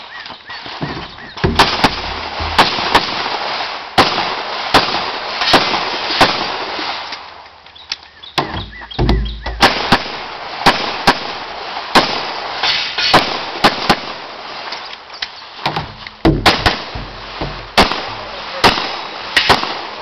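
Handgun shots fired in quick pairs and short strings, about thirty in all, with a pause of about a second and a half near the middle while the shooter moves to a new position.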